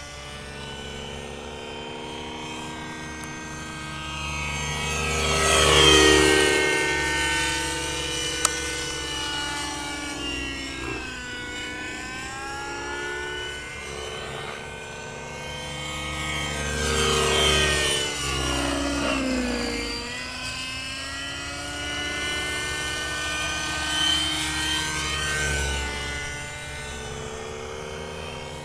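Hirobo Shuttle Sceadu radio-controlled helicopter flying, its small glow engine and rotors running with a steady whine. It passes close twice, about six and eighteen seconds in, each time growing louder and then dropping in pitch as it goes by.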